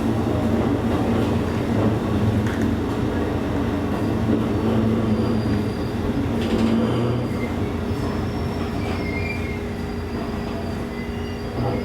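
Electric commuter train running, heard from inside the car: a steady rolling rumble of wheels on rail that eases off in the second half, with thin high squeals as it slows for a station stop.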